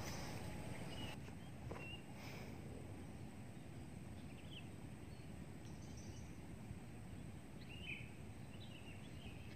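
Faint outdoor ambience: a steady low background noise with a few short bird chirps scattered through it.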